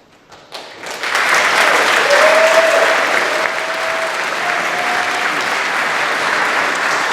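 Large audience applauding, starting about a second in and holding steady, with one long held note rising over it from about two seconds in for roughly three seconds.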